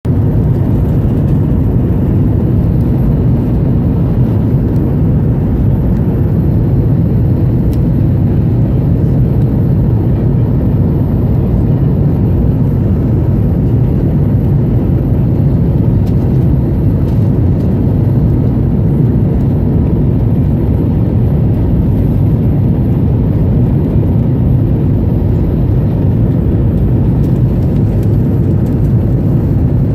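Steady low rumble of airliner cabin noise in flight, the even drone of jet engines and rushing air.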